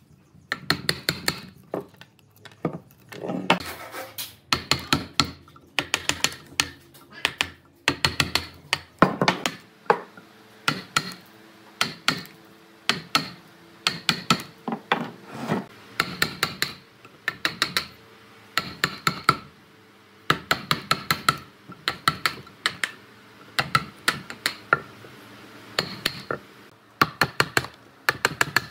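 Wooden mallet striking a steel chisel in quick runs of sharp knocks with short pauses between, chopping out the thin slats of waste between saw kerfs in a timber post. Each blow has a brief ringing.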